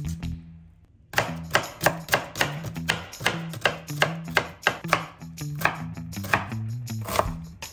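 Chef's knife chopping a red onion on a wooden cutting board: quick, even knife strikes against the board at about three a second, starting about a second in.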